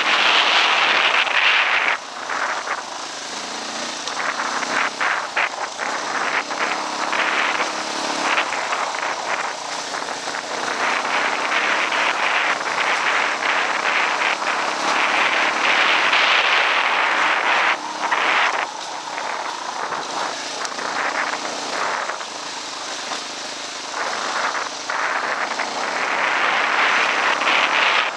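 Dual-sport dirt bike engine running while the bike rides along a dirt trail, heard from a camera on the bike, under a rushing wind noise on the microphone that swells and dips, loudest at the start, in the middle and near the end.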